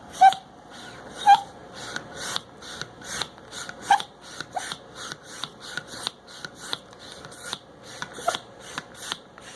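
Rhythmic rasping strokes, about two and a half a second, with a few short rising squeaks over them. The loudest squeaks come near the start and about a second in.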